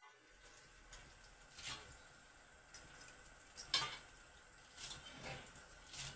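Hands picking and tearing green leaves over a steel plate: faint rustling with a handful of short light taps and scrapes on the metal, the loudest a little past halfway.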